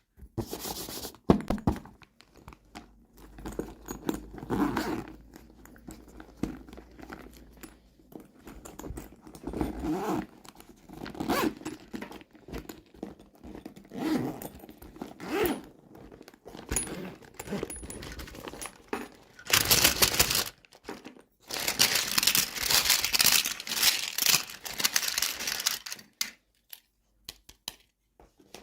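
Toy packaging being handled, crinkled and torn open by hand in irregular bursts, with a longer stretch of tearing and crinkling about two-thirds of the way through.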